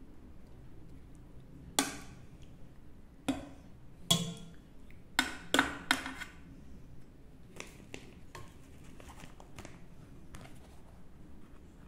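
Metal ladle clinking and tapping against a metal baking pan while spreading sauce over lasagna sheets: about six sharp clinks in the first six seconds, then lighter taps.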